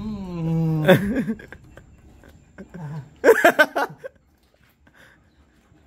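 Wordless man's voice sounds from eating hot food: a held vocal sound, falling in pitch, for about the first second, then a short, loud vocal outburst a little after three seconds in.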